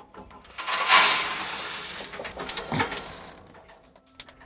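A coffee roaster's metal drawer being pulled out with freshly roasted beans in it: a rush of rattling about a second in that fades away, then a few light clicks and rattles as the beans are stirred by hand.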